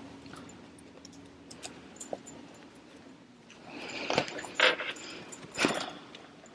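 Rustling and clinking as a half-sewn fabric wallet with metal zipper pulls and plastic sewing clips is handled and turned over, with a few louder metallic clinks about four to six seconds in.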